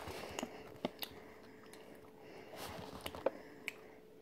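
Faint handling of a stiff plastic snack pouch: scattered soft clicks and a brief crinkle, over a faint steady hum.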